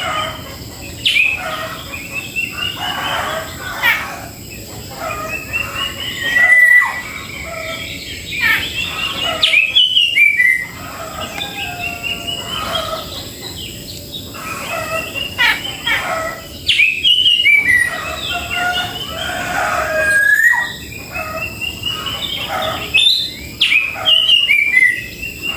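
Cucak jenggot (grey-cheeked bulbul) calling over and over: sharp chattering calls mixed with runs of quick notes that step upward in pitch, repeated every few seconds.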